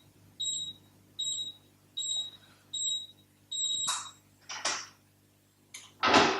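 EM3520 electronic safe lock's keypad beeping once for each key press as a code is entered: short, high, even beeps about one every 0.8 seconds, five in a row. Then, from about four seconds in, a few short mechanical knocks and rubs as the safe is unlocked and opened, the loudest near the end.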